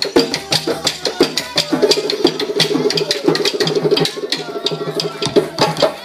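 Live percussion: hand drum, a calabash water drum (a gourd floating upside down in a basin of water) and wooden clappers, all beaten in a fast, dense rhythm. A voice holds a wavering sung note from about two seconds in to past five seconds.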